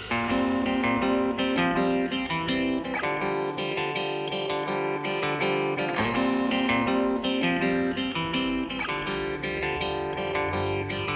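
Background music: a plucked guitar picking out a melody note by note.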